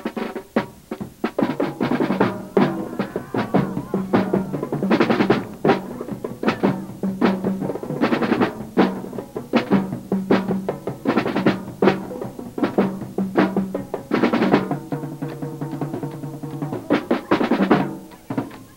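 Marching drumline's tom drums, the tri-toms and multi-tenors, with a bass drum, played with sticks in fast, dense rolls and runs of strokes. The drums ring at several distinct pitches.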